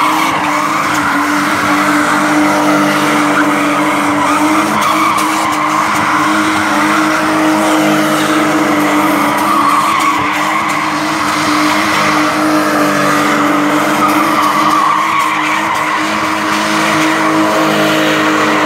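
A car drifting: its engine held at steady high revs while the tyres screech without a break.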